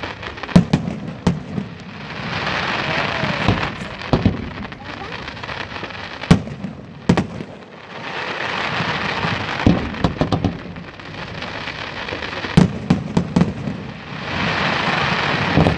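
Fireworks display: sharp, scattered bangs of shells bursting, with three longer stretches of dense crackling hiss in between.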